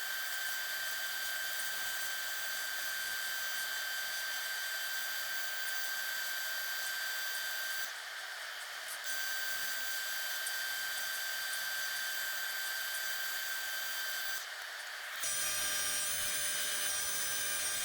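Mini lathe running with a steady motor whine over a hiss, as a friction finish is applied to the spinning wooden handle. The whine drops out briefly twice, and from about three quarters through it returns with a different, wavering set of tones.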